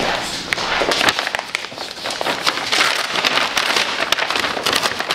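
Brown paper shopping bag crinkling and rustling as it is handled and opened: a dense, continuous run of crackles.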